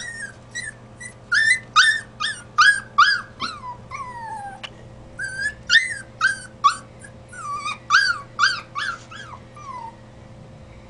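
Puppy crying: a long run of short, high-pitched whines and yelps, each rising and falling, with a few drawn-out cries that slide down in pitch. The cries stop about ten seconds in.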